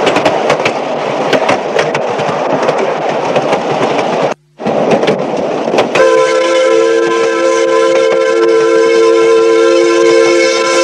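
Coal-fired miniature steam locomotive running, a noisy rumble with sharp clicks of the wheels over rail joints. The sound cuts out for a moment about four seconds in. From about six seconds a steady steam whistle sounds a chord of several notes and is held to the end.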